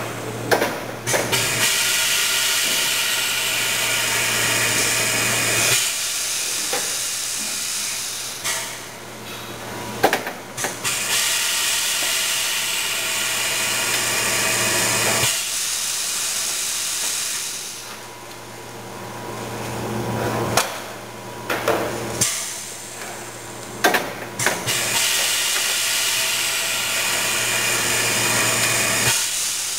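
Rotary blister former/sealer cycling: three long stretches of steady hiss over a low hum, broken by quieter gaps with sharp mechanical clicks and clunks as the machine moves between steps.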